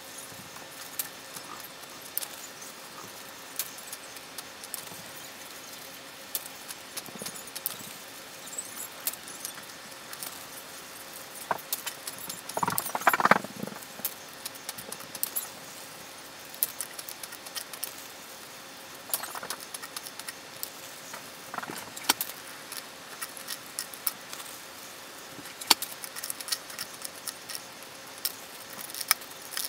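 Plastic zip-top bags crinkling and rustling as they are handled, with scattered light clicks and taps and one louder crinkle about midway.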